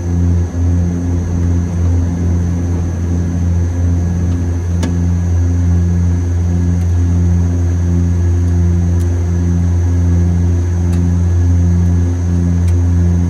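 Antonov An-26's twin Ivchenko AI-24VT turboprop engines and propellers at climb power after takeoff, heard inside the cockpit: a loud steady low drone with an even pulsing beat a little under twice a second, over a thin high whine.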